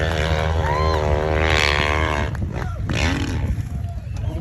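Hillclimb motorcycle engine revving hard, its pitch rising and falling, then fading away about two seconds in.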